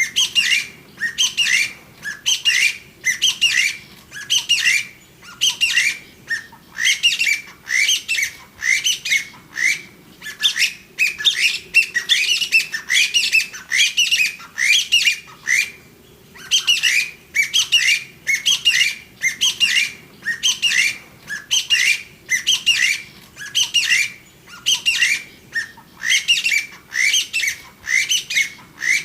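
Chinese bamboo partridge calling: loud, shrill notes that sweep upward, given in quick runs with short pauses between, over and over.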